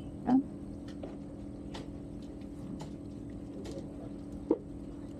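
A steady low motor hum, with a few short sharp clicks scattered through it.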